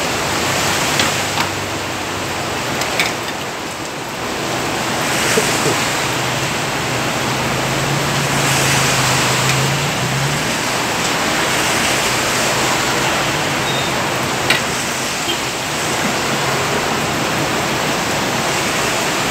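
Heavy rain pouring down as a loud, steady hiss, with a few sharp clicks scattered through it and a brief low hum about halfway.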